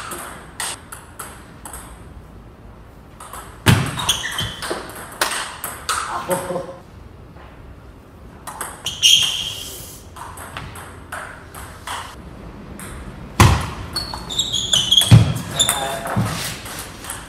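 Table tennis rallies: the ball clicking quickly back and forth off the rackets and the table, with a few heavier thuds among them. Short high squeaks from shoes on the wooden floor come between strokes.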